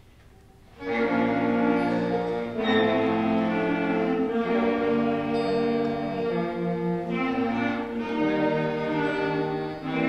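A student concert band of clarinets, flutes, saxophones and brass starts playing about a second in, with full held chords that change every second or so.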